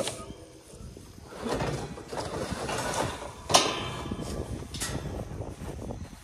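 Irregular rustling and handling noise broken by a few sharp knocks. The loudest knock, about three and a half seconds in, has a brief ring.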